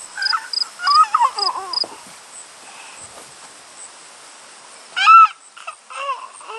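High, sliding animal calls: a cluster of them in the first two seconds and a shorter pair about five and six seconds in, with faint, evenly spaced high chirps in the background early on.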